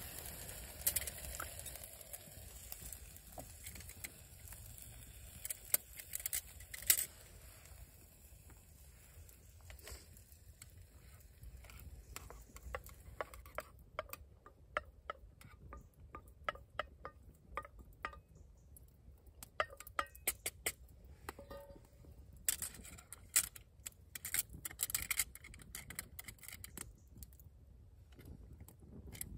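Metal spoon scraping and clinking in a stainless steel camping pot as rice is stirred and served over a campfire, with scattered sharp clicks and crackles; the clatter is busiest around six to seven seconds in and again after about twenty-two seconds.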